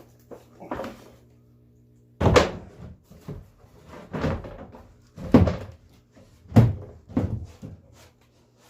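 Drift boat's rear seat being handled and set into place in the hull: a series of heavy, uneven knocks and thunks, the loudest about two, five and a half and six and a half seconds in.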